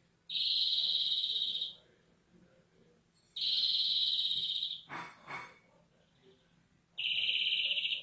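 European greenfinch singing three long, buzzy, rapidly fluttering trills of about a second and a half each, with short pauses between them. About five seconds in there are two short, softer, lower sounds.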